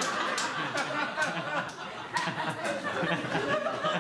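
An audience laughing, many voices at once, with scattered sharp bursts of laughter.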